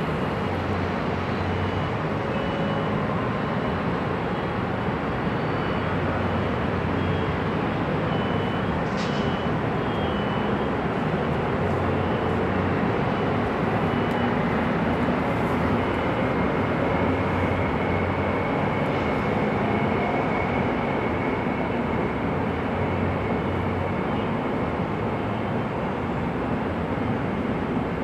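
Steady freeway traffic noise: a continuous wash of tyre and engine sound from many cars and trucks passing, with no single vehicle standing out and a faint whine partway through.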